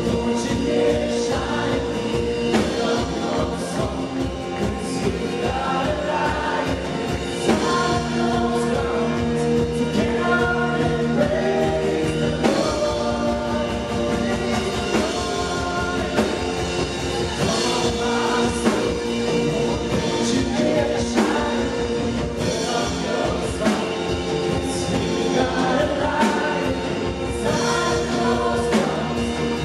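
Live worship band music with singing voices over sustained chords and a steady drum beat.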